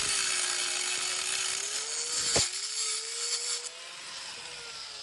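Small cutoff-wheel grinder whining at high speed while its wheel grinds through the seam between a tack-welded steel plate and the frame, opening the gap so the weld will penetrate fully. There is one sharp catch about halfway through, and after about three and a half seconds the grinding hiss drops away, leaving the tool's whine as the wheel comes off the metal.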